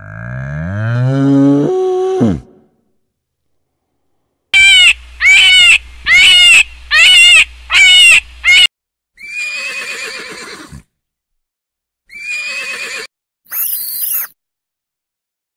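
A Highland cow mooing, one long call rising in pitch over about two seconds. After a pause comes a run of six short, loud, high animal calls, then a horse whinnying near the end.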